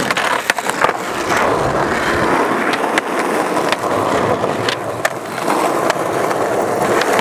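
Skateboard wheels rolling along asphalt as the rider cruises and pushes: a steady gritty rumble with scattered sharp clicks.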